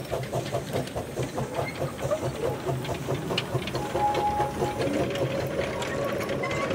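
Small narrow-gauge steam locomotive working past, its exhaust chuffing rapidly at about five beats a second. The chuffing fades over the first few seconds, giving way to the steadier rolling of the loaded log wagons behind it.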